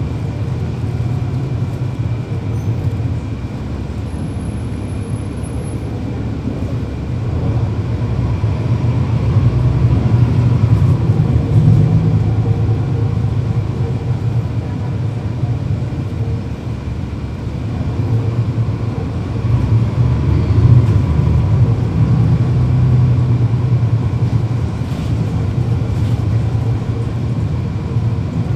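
Cummins ISL9 inline-six diesel of a 2012 NABI 40-SFW transit bus, heard from inside the cabin while running. It grows louder under power twice, about a third of the way in and again past two-thirds, then eases off each time.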